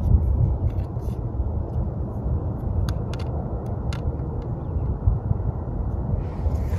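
Wind rumbling on the microphone, a low, uneven buffeting without any pitch, with a few faint clicks.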